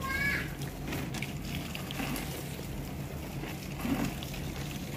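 Water from a garden hose spraying onto leafy plants, a steady hiss and patter. A short high chirp comes right at the start.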